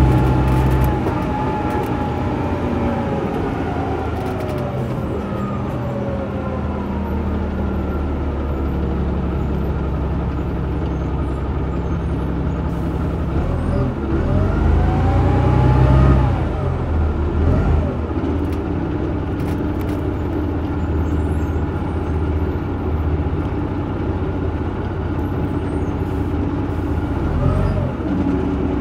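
Cummins LT10 straight-six diesel of a Leyland Olympian double-decker bus running under way, heard from on board. The engine note falls over the first few seconds, then rises to its loudest about halfway through and drops again.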